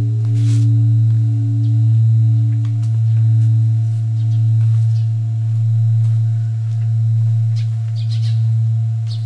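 Large bronze temple bell ringing on after being struck: a deep steady hum that slowly swells and fades in a regular waver, its higher tones dying away. Birds chirp faintly over it, most around eight seconds in.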